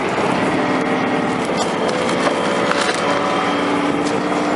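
An engine running steadily, its pitch shifting slightly about three seconds in.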